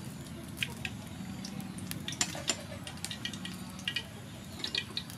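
Soybean oil poured from a small bowl into a steel wok, then scattered small ticks and crackles as the oil heats.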